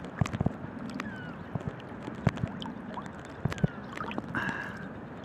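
Seawater lapping and sloshing around a swimmer in the sea, with many small splashes and clicks of water close to the phone's microphone. A brief higher sound stands out about four and a half seconds in.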